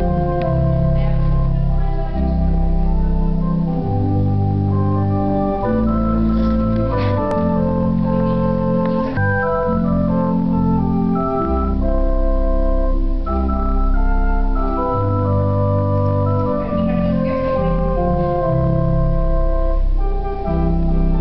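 Organ playing slow, sustained chords over a deep bass line, the notes changing every second or two.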